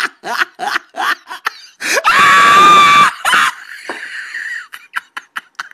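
A chicken held by a monkey squawks in distress: one loud, long scream of about a second comes about two seconds in. Before it there is a quick run of short, sharp calls, about four a second, and a few short clicks follow near the end.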